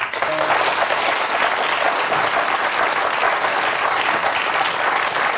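Studio audience applauding steadily, breaking out suddenly as a quiz answer is confirmed correct.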